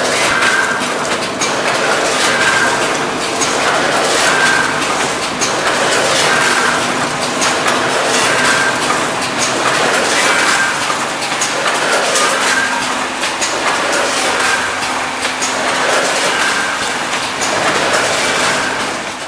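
Vertical form-fill-seal packing machine running while bagging potato chips: a continuous mechanical clatter of rapid clicks, with a packing cycle that repeats about once a second.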